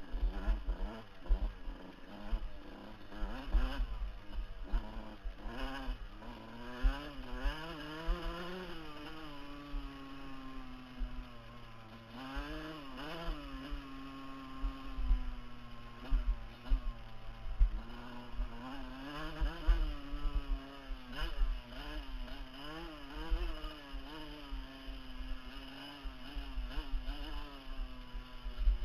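Dirt bike engine heard from the rider's helmet, revving up and down again and again as the throttle is worked over rough ground, with frequent low thumps underneath.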